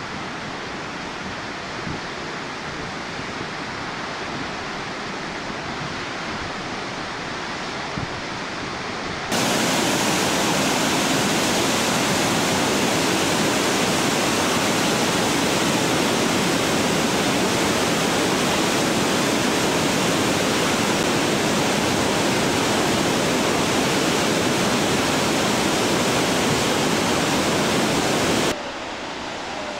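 Steady rush of a large meltwater river waterfall, falling water churning into whitewater. It jumps much louder suddenly about nine seconds in and drops back to the softer level near the end.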